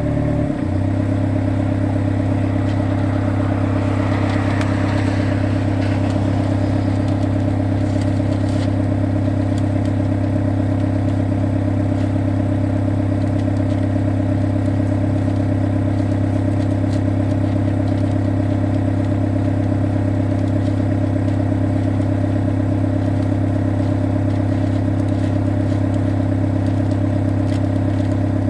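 Excavator's diesel engine running steadily at a constant speed, with a few faint clicks and clatters.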